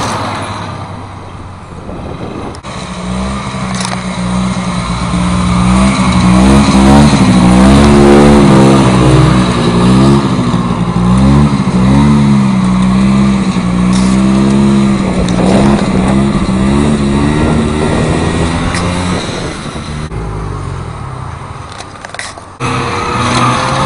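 A 1987 Ski-Doo Citation 250 snowmobile's two-stroke engine running as it is ridden, its pitch rising and falling over and over with the throttle, loudest through the middle. There is an abrupt jump in the sound shortly before the end.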